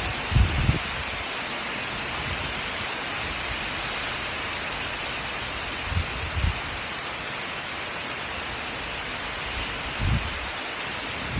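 Steady, even rain. Brief low thumps come a few times: twice early on, twice around the middle, and once near the end.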